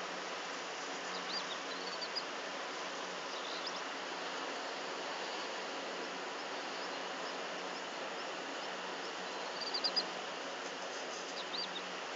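Small birds chirping outdoors: a few short runs of quick high notes now and then, the loudest near the end, over a steady hiss.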